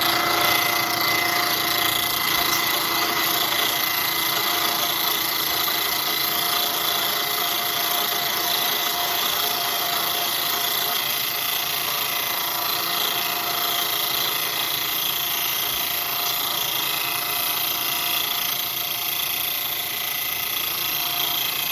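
Bridgeport milling machine cutter plunging into a long driver workpiece, a steady loud cutting noise with several sustained tones. The long overhang leaves the cutter and piece vibrating as it cuts.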